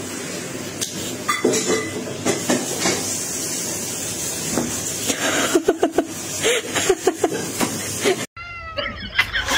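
Domestic cat making a run of short, low calls about halfway through, over a steady hiss. After a sudden break near the end come a few higher sliding calls.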